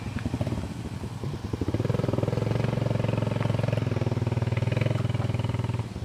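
A motorbike engine running close by, growing louder about two seconds in and dropping away just before the end.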